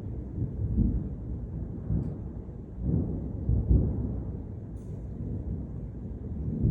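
Thunder rolling in a long, low rumble that swells about a second in and again around three to four seconds in.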